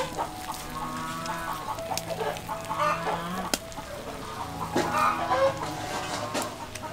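Chickens clucking, with a few light clicks, the sharpest about three and a half seconds in.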